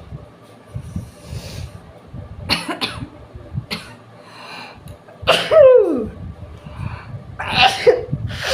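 A person sneezing again and again, set off by tickling the inside of the nose with a long grass stalk. There are about five or six sneezes. The loudest comes about five seconds in, its voice sliding down in pitch.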